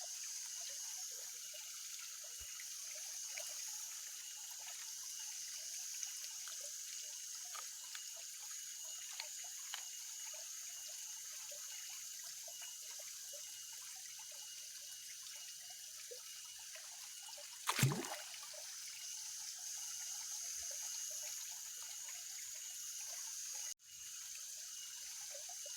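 Pond water trickling and dribbling with small scattered splashes, over a steady high-pitched drone. About 18 s in there is one brief swish falling in pitch.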